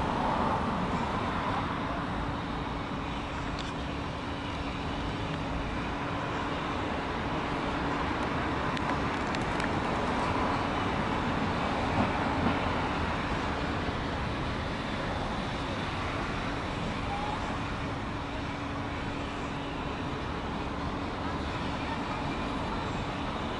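Steady outdoor background noise like distant road traffic, with faint voices.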